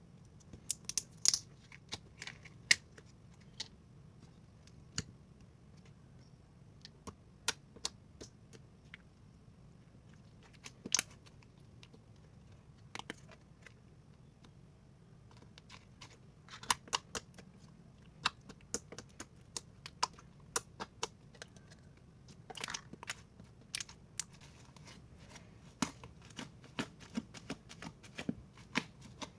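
Slime being handled and squished, giving irregular sharp clicks and pops, sparse at first and coming thicker in the second half.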